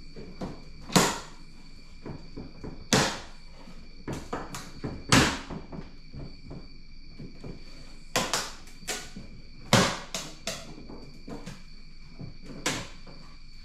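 Irregular sharp clicks and knocks, the loudest about a second, three, five and ten seconds in, from hands working loose the plastic cowl panel and wiper parts at the base of a car's windshield.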